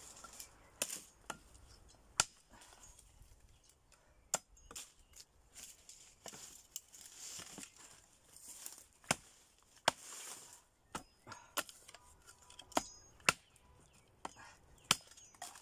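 Machete (bolo) chopping branches into firewood against a wooden block: about a dozen sharp chops at an uneven pace.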